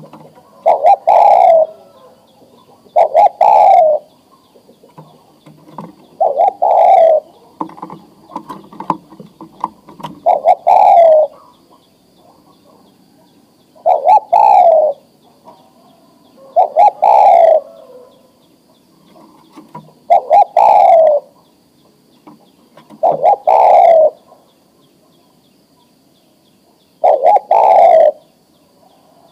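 Male spotted dove cooing: about nine coo phrases, each about a second long and ending on a falling note, repeated every two to four seconds. This is the male's breeding call to a female.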